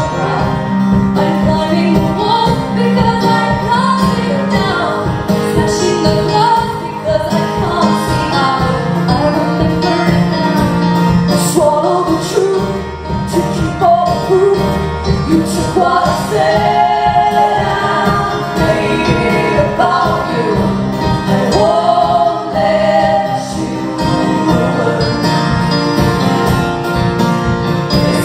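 Live performance of a song: women's voices singing over instrumental accompaniment.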